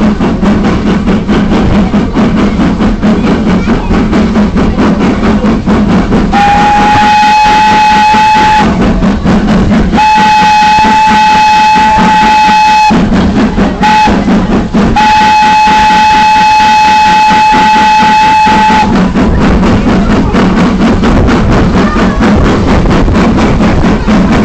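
Steam locomotive whistle blowing the grade-crossing signal, long, long, short, long, starting about six seconds in, over the locomotive's steady rhythmic exhaust beat.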